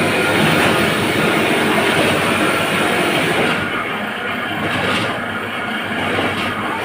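Sack-printing machine running with a steady, fast mechanical clatter.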